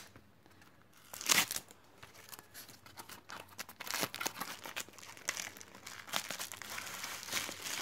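Packaging handled during an unboxing: a cardboard box opened and a plastic-wrapped selfie stick drawn out, with crinkling plastic and rustling cardboard. There is one short loud rustle about a second and a half in, then smaller crinkles on and off.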